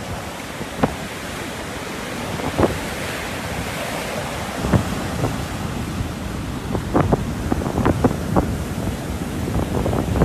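Rough surf breaking and washing up the beach, a steady rush of churning water, with wind noise on the microphone and several short sharp pops through it.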